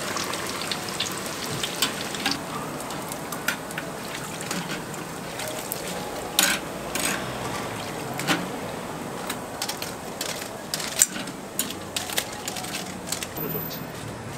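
Battered snacks deep-frying in a fryer of hot oil with a steady sizzle, and scattered sharp clicks of metal tongs against the wire draining rack.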